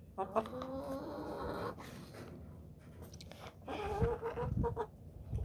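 Chickens clucking: two drawn-out calls, one just after the start and another about four seconds in, with a few soft low thumps under the second.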